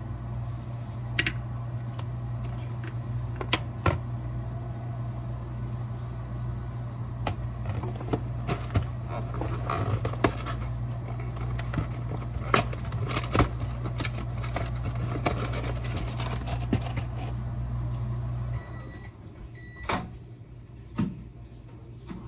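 Microwave oven running with a steady low hum and scattered clicks, heating a bowl of marshmallows. The hum cuts off about three-quarters of the way through, followed by two short beeps and a couple of knocks.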